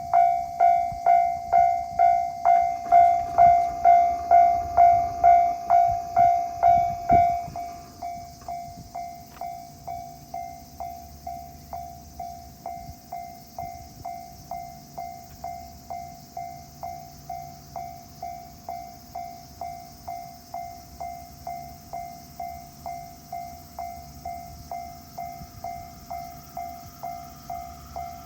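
Japanese level-crossing warning bell ringing, an electronic tone struck about twice a second. It is loud for the first seven seconds or so, then abruptly drops to a much quieter level and keeps ringing.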